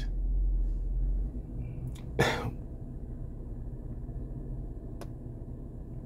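A steady low hum inside a car cabin, broken about two seconds in by one short, sharp burst of breath from a person, with a faint click about five seconds in.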